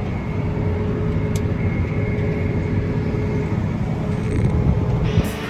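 Heavy farm harvest machinery running at a steady, even drone of diesel engine rumble.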